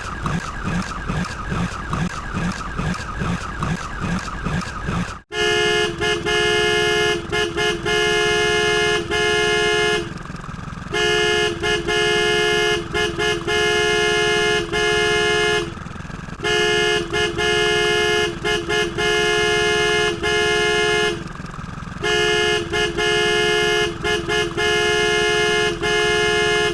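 An electric or air horn honking in repeated long blasts made of several tones at once, in four groups of about five seconds each with short breaks between. Before it, for about the first five seconds, a different fast pulsing sound plays and then cuts off suddenly.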